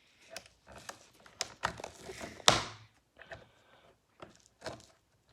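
Irregular clicking and scraping of a small tool against the plastic brush roll and housing of a Shark vacuum as tangled hair is picked out, with one sharper knock about halfway through.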